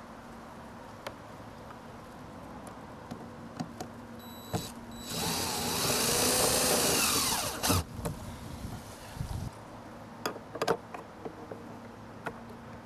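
Cordless drill driving a screw to fasten a camera mounting box to house siding. A short spurt about four and a half seconds in is followed by a run of roughly two and a half seconds with the motor pitch wavering, stopping just before eight seconds. A few light clicks and taps of handling follow.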